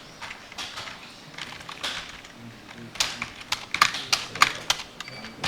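Computer keyboard typing: scattered key clicks, then a quick run of louder key presses about three to four and a half seconds in.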